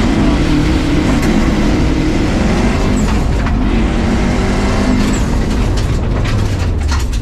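Subaru WRX rally car's engine under hard driving, its pitch falling and rising as the driver eases off and accelerates again, over a steady rush of tyre and gravel noise from the dirt course.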